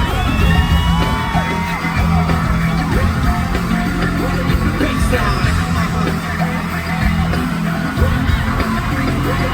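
Hip-hop track with a heavy bass line played loud over a concert PA, with scattered screams and yells from the audience.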